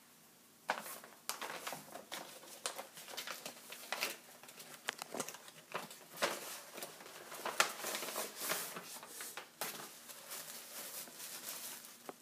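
A present being unwrapped by hand: its wrapping crinkles and tears in quick, irregular rustles, starting about a second in.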